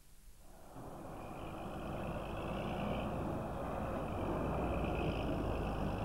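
Heavy tipper truck's diesel engine running, rising in loudness over the first two seconds and then holding steady.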